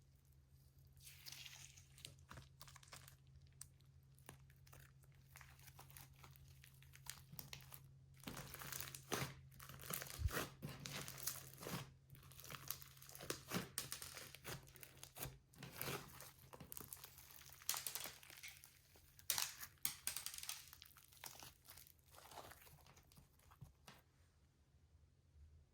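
Slime and plastic piping bags being handled, giving faint, irregular crackles and crinkles, thickest in the middle and dying away near the end, over a steady low hum.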